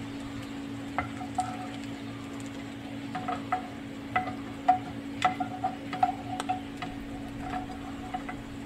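A metal spatula clinking and scraping against a cooking pan while stirring: irregular short clinks, each ringing briefly, over a steady hum.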